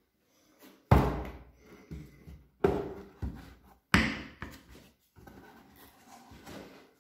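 A cardboard box being handled and set down on a hard surface: three sharp knocks in the first four seconds, then softer scraping and rustling as it is slid and straightened by hand.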